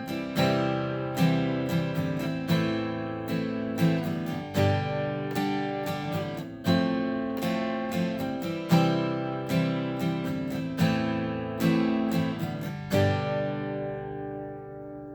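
Acoustic guitar strumming chords as an instrumental intro, the last chord near the end left to ring out and fade.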